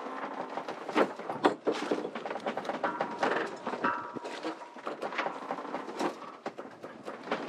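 Lines and rigging hardware being worked on a sailboat while a makeshift shroud is tensioned: irregular clicks and knocks throughout, with a thin squeak held for a few seconds from about three seconds in.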